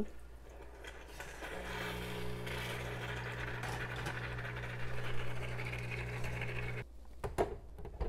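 Breville espresso machine's vibratory pump humming steadily while hot water hisses out of the group head into a shot glass to warm it. The hum starts about a second and a half in and cuts off sharply near the end, followed by a few light clinks.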